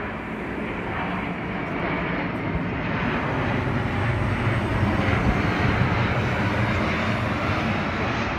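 Jet engines of a C-17 Globemaster and a BAe 146, both four-engine turbofan aircraft, passing low overhead together: a steady rumbling engine noise that swells, loudest a little past the middle, then eases slightly.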